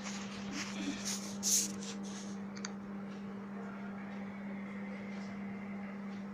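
A few brief rustling, scraping noises and a sharp click in the first half, over a steady low hum that runs throughout.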